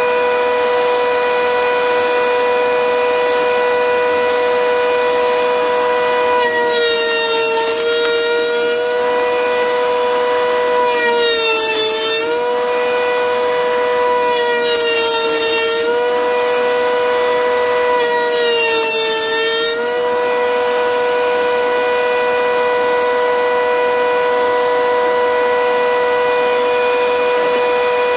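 Table-mounted router running with a steady high whine. Four times, as a strip of wood is fed past the bearing-guided bit, the pitch drops slightly under the cutting load and a rough cutting hiss joins in.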